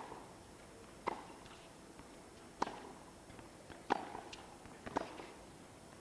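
Tennis rally: a ball struck back and forth by rackets, with about five sharp pocks, one every second and a quarter or so.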